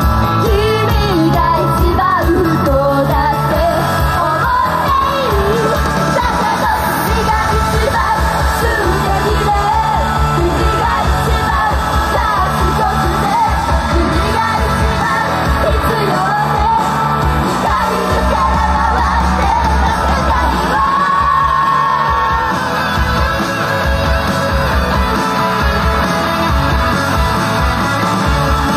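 A pop-rock song performed live, with the idol group's voices singing over a loud band track with a steady beat.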